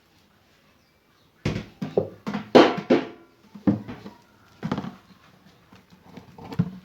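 A run of irregular knocks and clanks, some with a short metallic ring, from washing machine parts being handled and fitted by hand, starting about a second and a half in and thinning out after about five seconds.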